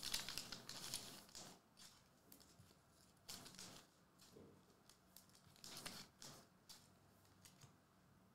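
Faint, intermittent rustling and crinkling of a trading-card pack wrapper and cards being handled, in a few short bursts.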